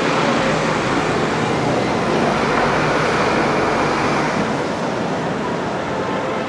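Road traffic: a steady rush of passing vehicles, swelling about halfway through and easing off towards the end.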